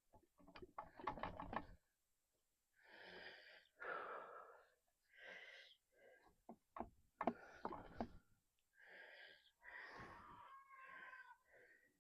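Soft, wheezy breaths from a person, a string of separate exhales, with scattered small clicks and ticks of handling around the first second and again around seven to eight seconds in.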